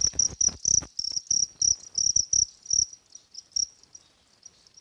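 Male crickets chirping: a run of short, high-pitched chirps about three a second, stopping about three and a half seconds in.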